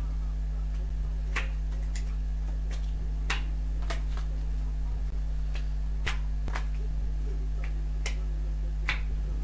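Playing cards being flicked out of a deck one after another in boomerang card throws, giving about ten sharp snaps at irregular intervals. A steady low electrical hum runs underneath.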